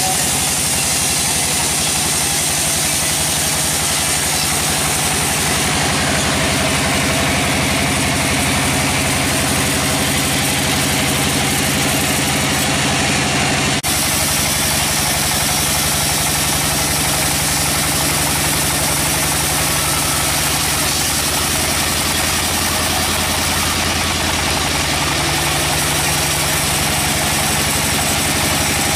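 Band sawmill running, its band blade sawing lengthwise through a hardwood log: a steady, loud mechanical drone with a dense sawing hiss above it. The sound changes abruptly about halfway through.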